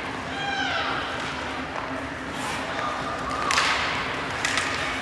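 Ice hockey rink sounds: a steady hum and crowd background, a distant voice calling about half a second in, and sharp knocks of puck and sticks against the boards about three and a half and four and a half seconds in.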